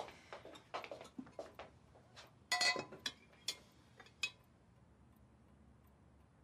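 Dishes and cutlery clinking on a dinner table: a run of light taps and clicks, with a brief ringing clink of glass or china about two and a half seconds in. The clinking stops after about four seconds.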